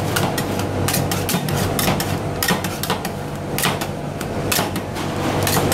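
Two metal spatulas chopping and scraping ice cream mixture on a stainless steel cold plate: sharp, irregular clacks of metal on metal, about three a second, over a steady low hum.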